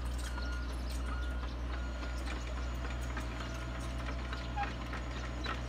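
Airman mini excavator's diesel engine running steadily, with scattered light clicks from the machine working over the ground.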